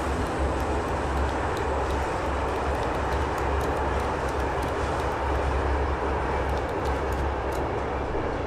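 Steady low rumble and running noise of a moving train, heard from inside the carriage, with a few faint light ticks.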